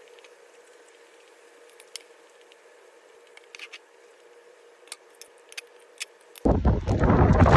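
Metal spoon and fork scraping and clinking against a glass plate, a handful of light clicks over a faint room hum. About six seconds in, a sudden loud rush of wind on the microphone cuts in and becomes the loudest sound.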